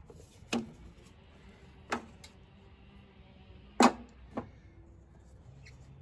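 Five sharp clicks and knocks of hands and tools at work on the mower's engine, the loudest about four seconds in.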